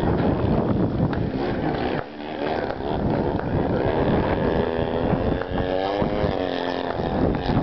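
Piston engine of a propeller aerobatic plane overhead, its pitch rising and falling as the plane manoeuvres. Rough, wind-like noise covers the first two seconds.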